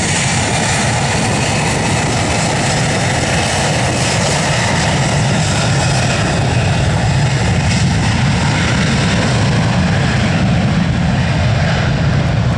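Airbus A320's twin jet engines at takeoff thrust during the takeoff roll on a wet runway: loud, steady jet noise with a deep rumble underneath.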